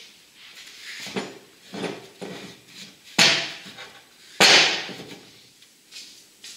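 A heavy ash bowl blank being handled and set down on a wood lathe's bed: a series of wooden knocks and clunks, the two loudest about three and four and a half seconds in.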